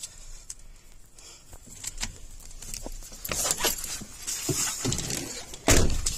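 Scattered clicks, knocks and rustles of someone moving about and handling things in a truck cab, with one loud thump near the end.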